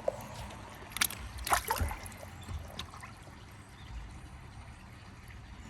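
Water splashing and trickling as a koi is handled in shallow water for a skin scrape, with a few sharp splashes about a second in, then quieter dripping and trickling.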